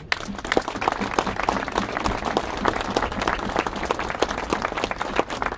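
A crowd applauding, with dense clapping that thins out near the end.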